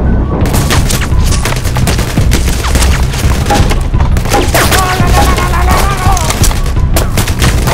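Rapid gunfire sound effects for a Nerf blaster fight, in quick bursts over steady background music. A voice cries out about halfway through.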